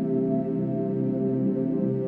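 Slow ambient background music of sustained, held tones with no clear beat.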